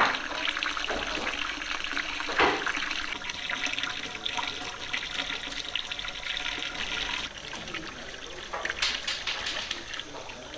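Tap water pouring and splashing into a large stainless steel dough-mixer bowl as it fills. A sharp knock comes about two and a half seconds in, and the splashing thins about seven seconds in.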